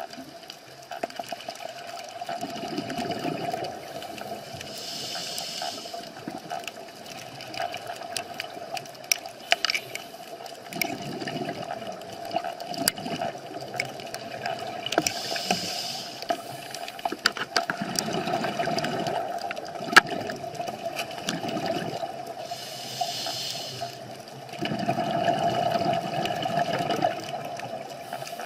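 Underwater sound of a scuba diver breathing: a low bubbling rumble of exhaled air about four times, each followed by a short hiss of the regulator on the inhale. A steady hum and scattered sharp clicks run underneath.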